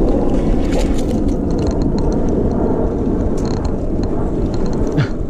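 Wind rushing over the microphone of a camera on a moving bicycle, mixed with the rumble of its tyres over paving stones, with a light knock about five seconds in.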